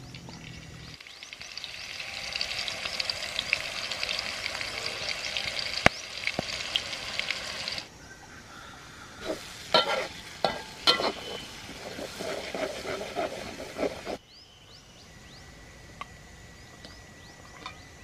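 Ground chili paste sizzling and crackling in hot oil in a wok. In the middle, a metal spatula scrapes and knocks against the wok as the paste is stirred. Near the end the frying sound stops suddenly, leaving a quiet background with a few bird chirps.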